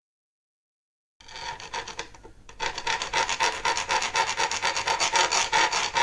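Round hand file rasping back and forth in a bolt hole of a motorcycle-style seat base, in quick repeated strokes, starting about a second in. The hole is being enlarged because the powder coating makes it too tight for the bolt to go in.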